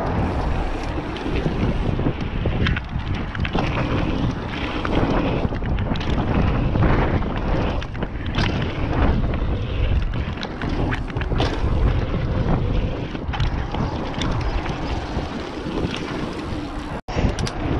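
Wind rushing over a GoPro's microphone as a mountain bike rides down a wooden roll-in and over dirt jumps, with tyre rumble and frequent rattles and knocks from the bike. The sound cuts out for a moment near the end.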